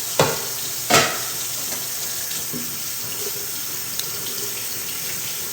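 Kitchen tap running steadily into a sink, with two sharp knocks in the first second and a faint click later.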